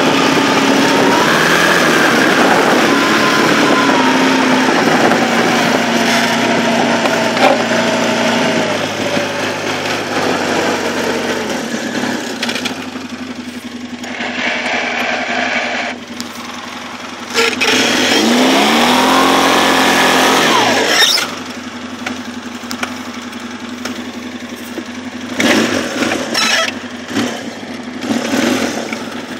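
2004 Polaris 600 twin ATV engine running under load while plowing snow, its pitch wavering as the throttle changes. About two-thirds through it revs up in a rising sweep, cuts back suddenly to quieter low running, then gives a few short revs near the end.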